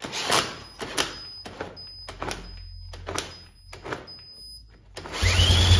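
Metal clicks and knocks as a socket and extension are worked onto the crankshaft nut of a small single-cylinder ATV engine. About five seconds in, a power tool spins the engine over through that nut, with a low hum and a whine that rises and then holds. The engine does not fire, because the ignition has not yet been switched on.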